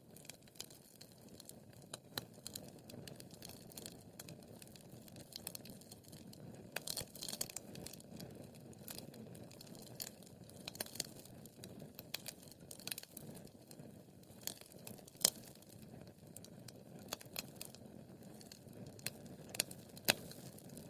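Wood fire crackling in a fireplace: irregular sharp pops and snaps over a steady low rush of burning, with a couple of louder pops about two-thirds through and near the end.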